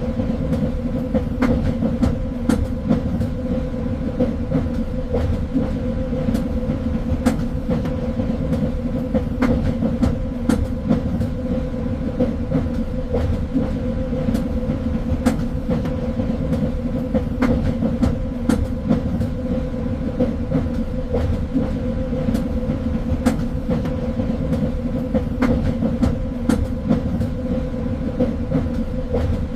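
Train running on rails: a steady rumble with a constant low hum, broken by frequent irregular clicks and knocks from the wheels and track.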